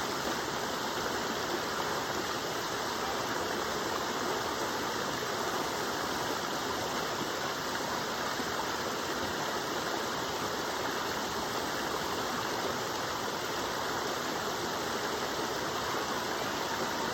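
Waterfall: water falling and rushing in a steady, unchanging wash of noise.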